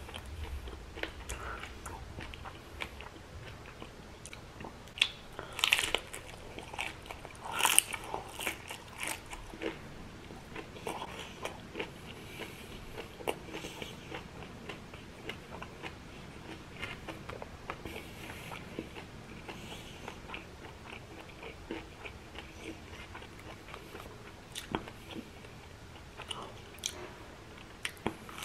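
Close-miked crunching and chewing of crispy battered fried prawns, with the loudest crunchy bites about five and eight seconds in, followed by steady chewing with many small crackles.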